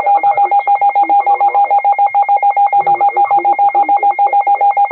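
Emergency alert tone signal: loud electronic tones, one near 850 Hz and a higher one, pulsing rapidly at about ten beeps a second.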